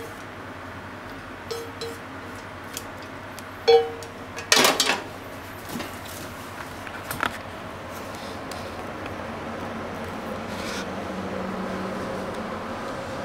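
Wooden chopsticks tapping a nonstick frying pan a few times as food is scraped out, each tap with a short ring. About four and a half seconds in, the pan is set down on the gas stove's grate with a loud clatter, followed by a steady faint hum.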